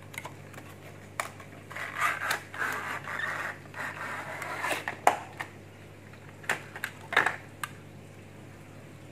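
Cardboard toy box and its plastic insert handled as a toy train is slid out. There are a few seconds of scraping as the sleeve slides off, then several sharp clicks and crinkles of plastic packaging.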